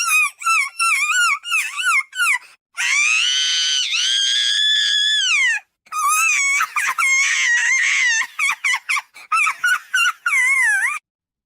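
A voice run through a pitch-raising effect, squealing and whining in short wavering calls, with one long held wail about three seconds in that rises and then falls.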